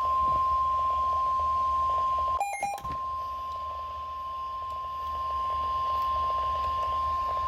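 NOAA Weather Radio's 1050 Hz warning alarm tone, a steady single-pitched beep played through a weather radio's speaker, signalling that a warning bulletin follows. About two and a half seconds in it breaks off for a moment, with a short cluster of other beeps, then resumes.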